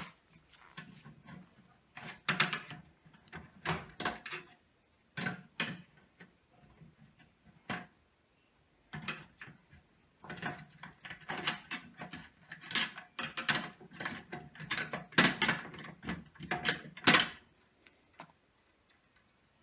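Hands working on a fluorescent light fixture's lamp holders, prying and handling hard plastic and metal parts. It makes a series of short scrapes and clicks, scattered at first and coming thick and fast in the second half.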